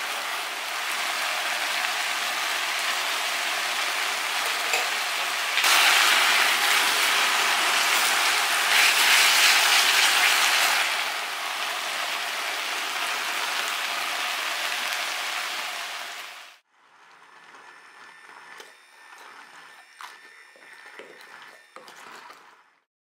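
Chunky tomato sauce with onion and paprika sizzling and spattering as it is stir-fried on medium heat in a frying pan, louder for several seconds in the middle. About two-thirds of the way through it cuts off, leaving a much fainter stretch of light knocks and a thin steady whine.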